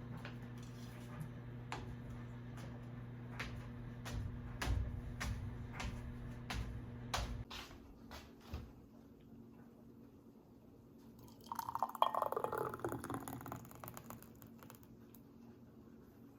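Faint kitchen liquid sounds: scattered soft drips and clicks over a low steady hum that stops about halfway through, then a brief pouring or ladling splash, most likely soup being handled.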